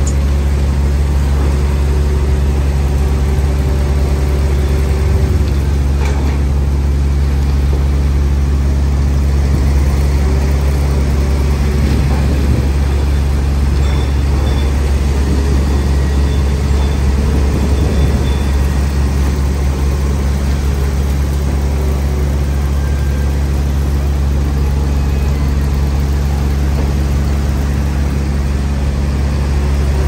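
Heavy diesel construction machinery idling steadily, a deep even engine hum.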